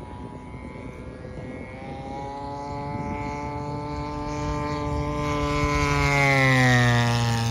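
Beechcraft T-34 Mentor's engine and propeller droning as it flies a low pass. The drone grows louder as the plane approaches, then drops in pitch as it passes, about six seconds in.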